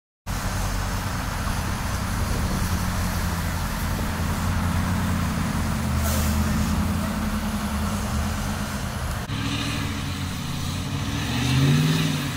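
Motor vehicle engines running steadily on an icy road. About nine seconds in the sound changes abruptly to another engine, and near the end a pickup truck's engine revs up and falls back.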